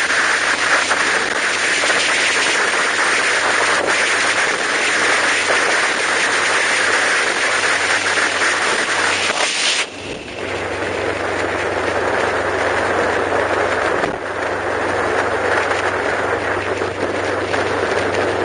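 Steady road and wind noise from a vehicle driving across a bridge. About ten seconds in the sound changes abruptly, becoming duller with a steady low hum.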